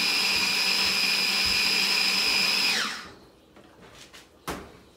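Oster electric mini food chopper running steadily with a high whine while it purees peppers, onions and herbs. The motor winds down and stops about three seconds in, followed by a single knock near the end.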